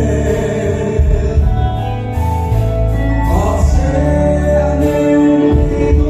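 Male lead singer singing live into a handheld microphone over a band with bass, guitar and keyboards, amplified through the hall's PA and heard from the audience.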